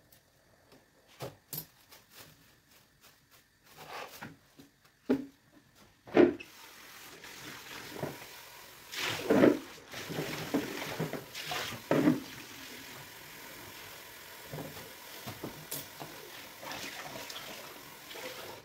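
A few light knocks and clicks of handling vegetables, then from about six seconds in a kitchen tap runs steadily, with louder splashing for a few seconds as a peeled potato is rinsed under it.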